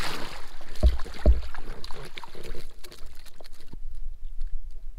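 Water splashing as a wooden landing net is dipped in to scoop a hooked trout beside an inflatable boat. Two low thumps come about a second in, followed by small clicks and rustles as the fish is handled in the net.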